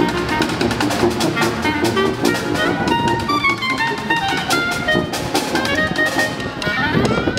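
Background music: an electronic pop instrumental with a steady drum beat, and a sweep that rises in pitch near the end.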